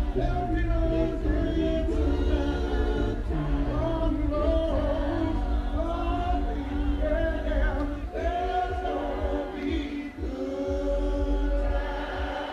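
Electronic dance music from a DJ set played loud over a festival sound system: heavy bass under layered sung vocals. The bass thins out briefly about ten seconds in, then comes back in full.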